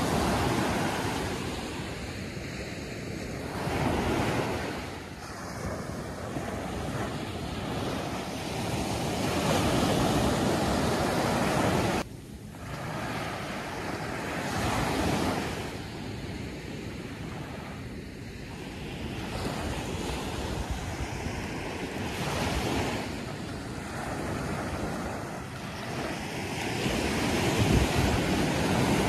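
Ocean surf breaking and washing up a sandy beach, a steady rushing noise that swells and eases as each wave comes in.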